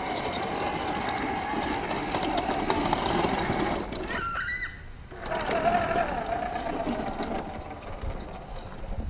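Small electric motor and gearbox of a 1:16 scale RC truck whining steadily under throttle. The whine cuts out for about a second near the middle as the throttle is let off, then picks back up and wavers, with light clicks over it.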